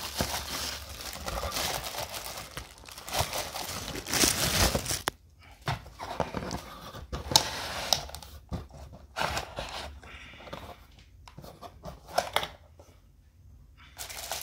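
Clear plastic bag crinkling and rustling as a tweeter is pulled out of it by hand, dense for about five seconds. After that come scattered crinkles and short knocks as the tweeter and its cardboard box are handled.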